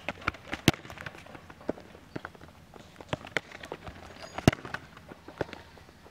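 Quick footsteps of a player running on a hard futsal court, with two sharp kicks of the ball, one about a second in and another past the four-second mark.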